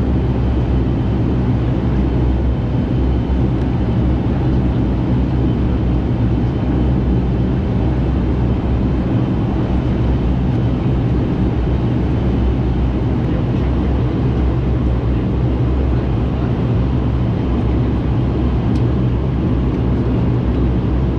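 Steady drone of a Bombardier Dash 8 Q400's turboprop engines and propellers heard from inside the passenger cabin, a constant low hum with rumble.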